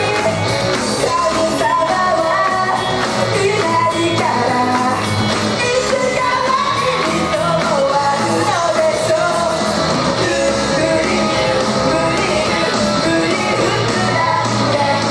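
Female idol group singing live into handheld microphones over loud rock backing music.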